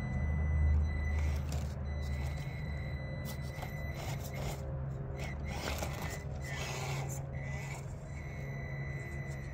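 Traxxas TRX-4M mini crawler, fitted with Injora underdrive gears, crawling slowly over rocks. Its small electric motor and geartrain give a steady high whine, under irregular clicks and knocks of tyres and chassis on rock. A louder scraping clatter comes about five and a half to seven seconds in.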